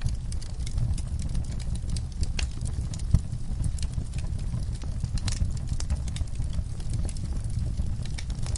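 Wood fire crackling and popping in irregular sharp snaps over a steady low rumble, with one louder pop about three seconds in.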